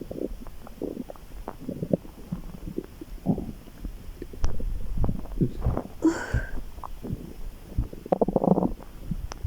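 A person's stomach gurgling and rumbling in many short, irregular gurgles, with a longer, higher-pitched gurgle about six seconds in.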